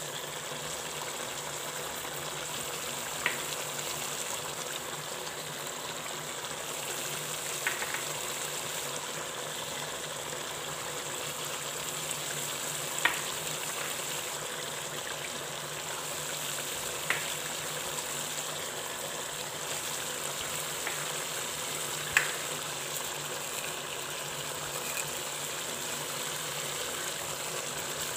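Chicken and tomatoes frying in oil in a karahi on a high flame: a steady sizzle, with five short sharp ticks spaced several seconds apart.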